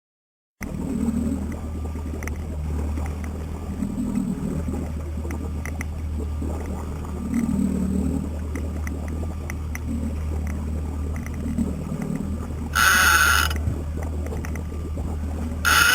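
Trolling boat's engine droning steadily, with water noise. About 13 seconds in a fishing reel's drag sounds briefly as line is pulled off, and starts again just before the end: the sign of a fish striking the lure on the planer-board line.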